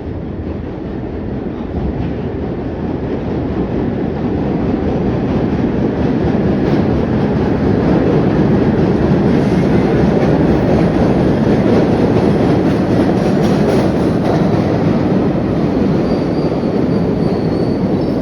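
MBTA Red Line subway train pulling into the station: the rumble of its wheels on the rails grows louder over the first several seconds, then holds steady. A faint high wheel squeal comes in near the end.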